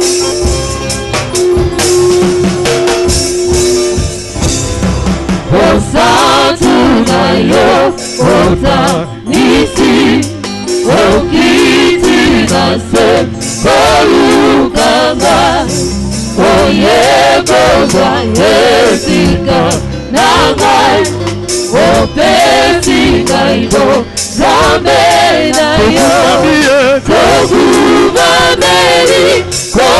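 Gospel music: a choir singing over a steady percussion beat, after a held note in the first few seconds.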